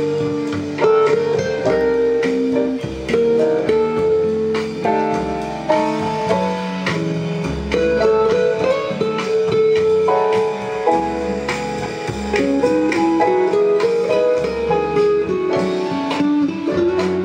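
Guitar music playing back from a cassette recording on a Technics RS-M226 tape deck. The playback is clean rather than muffled.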